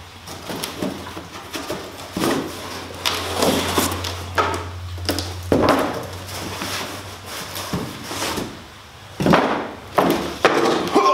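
Cardboard packaging being handled: scraping, rustling and irregular knocks as cardboard inserts and small boxes are pulled out of a long shipping carton and set down.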